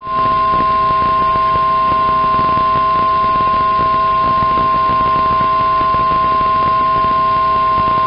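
Weather radio 1050 Hz warning alarm tone: one loud, steady pitch held throughout, with a fainter lower tone and radio hiss beneath. It signals that a warning message follows.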